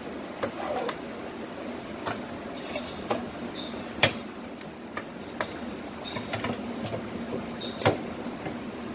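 Knife blade tapping and scraping against the sides of a metal baking tin as it is run around the edges to loosen a steamed cake, with scattered clicks and two sharper knocks, one about midway and one near the end as the tin is turned out onto a plate.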